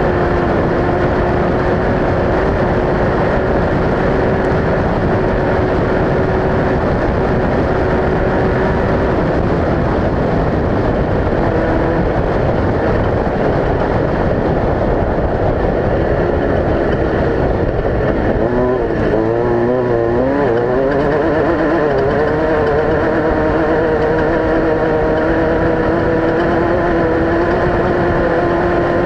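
Off-road race vehicle engine running hard under a loud, steady rush of noise. About eighteen seconds in, the engine pitch wavers quickly up and down for a few seconds, then steadies and climbs slowly.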